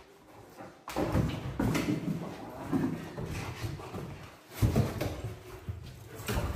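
Irregular scuffs and knocks from a search dog moving about and pawing at the wall and windowsill, starting about a second in.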